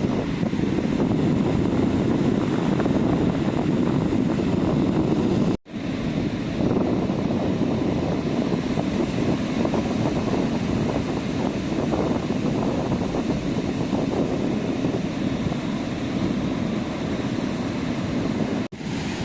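Sea surf washing onto a beach, a steady low rush of waves. The sound cuts out for an instant twice, about five and a half seconds in and near the end.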